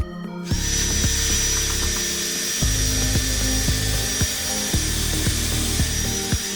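A small power tool running steadily with a high-pitched whine, starting about half a second in and cutting off near the end, over background music with a steady beat.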